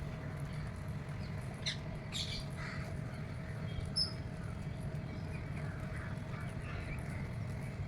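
Birds calling, with short squawks and chirps, the sharpest a little after the start and one near the middle, over a steady low rumble.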